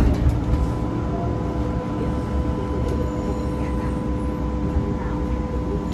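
B2-class tram running: a steady low rumble with a constant whine held on a few pitches.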